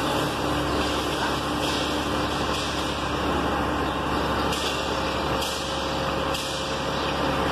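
Truck engine running steadily, with a few short hisses in the second half.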